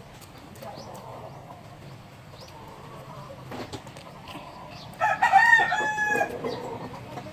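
A rooster crows once, about five seconds in: one call of a little over a second, the loudest sound here.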